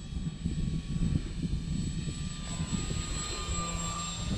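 Electric motor and propeller of a SIG Four Star 20EP RC plane whining as it flies low past, a thin high tone that rises slightly near the end, with wind rumbling on the microphone.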